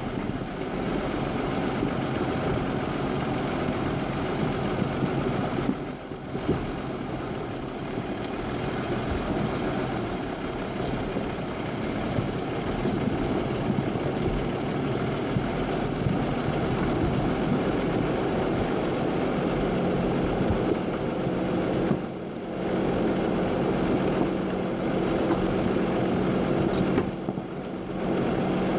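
Jeep driving: a steady rumble of engine and road noise, with short drops in level about six seconds in, about two-thirds through and near the end. A steady engine hum comes through more clearly in the second half.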